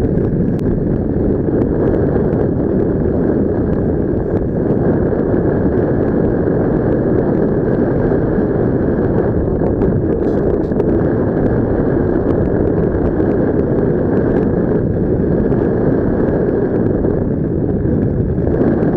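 Steady rush of wind over a helmet-mounted action camera's microphone during paraglider flight, a loud even noise with no break.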